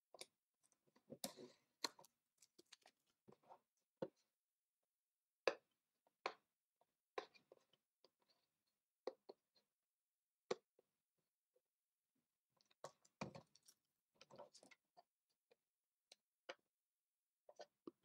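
Faint, scattered clicks and short crackly rustles of hands handling a cardboard CPU retail box and peeling a strip of clear tape off it. The rustling comes in denser patches about a second in and again near 13 to 14 seconds.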